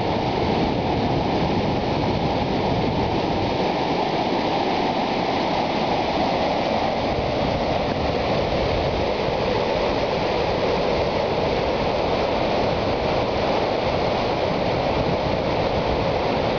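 Loud, steady rush of turbulent, surging water as a wave of muddy water breaks over an embankment.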